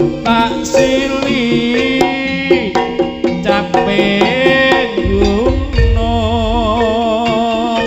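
Javanese folk dance music for a Bujangganong dance: fast drumming under a wavering, held melody line.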